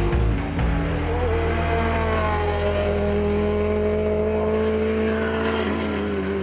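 Subaru BRZ race car's two-litre naturally aspirated flat-four engine running at high revs as the car drives by, its note holding nearly steady with small dips.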